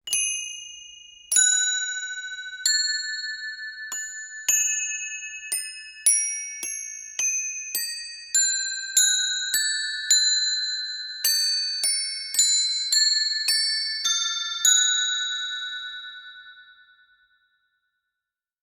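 Aeolian bells (wind chimes) ringing: about twenty high, clear bell tones struck at uneven intervals, each ringing on over the next. The last strike comes about fifteen seconds in and the ringing dies away soon after.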